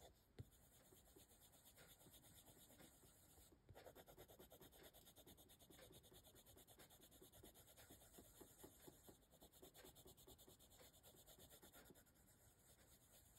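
Faint scratching of a coloured pencil on paper in quick, repeated short shading strokes, with a small tap about half a second in.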